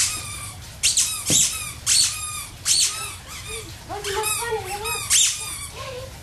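A squeaky dog toy squeezed over and over: about eight short, sharp, high squeaks in quick succession, with a longer, lower wavering squeak about four seconds in.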